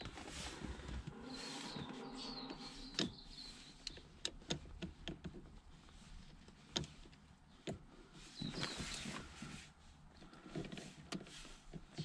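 Quiet hand-tool handling: scattered light clicks and soft scrapes of an Allen key in the small set screws of a metal gear knob as they are tightened a little at a time on the shift lever.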